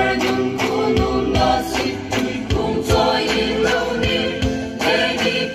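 Group of voices singing a traditional dance song together in long held notes, accompanied by irregular drum beats.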